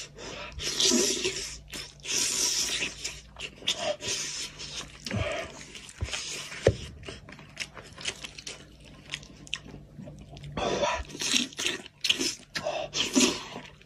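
Close-up wet eating sounds of a man eating a braised goat's head by hand: irregular slurping, sucking and chewing as he pulls soft meat and skin from the bone, with a few sharp clicks midway.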